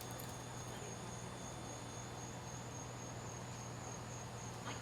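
Insects chirring outdoors: a steady, finely pulsing high-pitched trill, with a low steady hum underneath.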